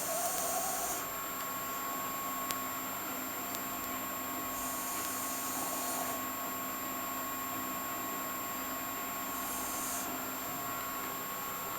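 Pug snoring in its sleep: three hissing breaths a few seconds apart, one at the start, one about five seconds in and a shorter one near ten seconds.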